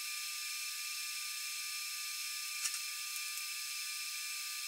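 TIG welding arc on steel frame tubing: a steady, thin hiss with a faint high whine, and a couple of faint clicks about two and a half seconds in.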